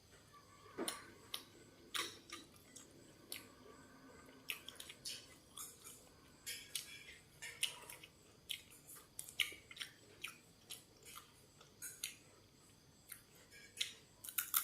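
Close-up eating sounds: a person chewing, with many short, irregular crunching clicks.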